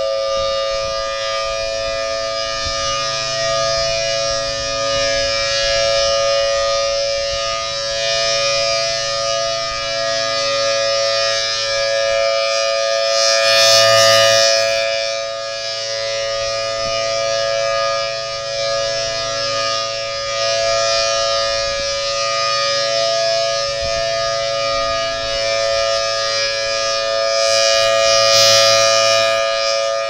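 Federal Signal Thunderbolt 1000T B-Series rotating dual-tone warning siren sounding a steady alert tone, two notes held at a constant pitch. The level swells in the middle and again near the end as the rotating horn sweeps past.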